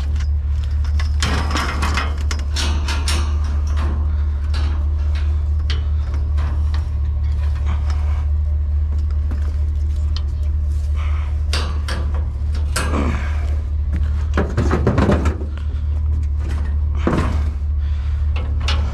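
Scattered clanks, knocks and rattles of scrap metal and furniture being shifted and secured in a pickup truck's caged bed, with a few louder clatters in the second half, over a steady low hum.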